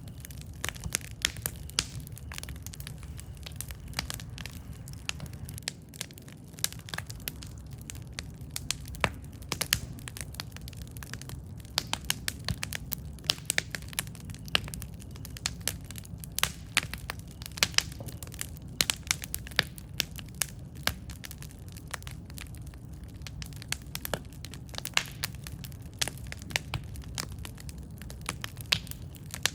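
Campfire burning with a steady low rumble and frequent irregular sharp crackles and pops of the wood, a few much louder than the rest.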